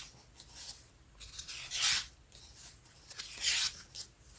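Photobook pages being turned and handled, a few short papery swishes with quiet between them.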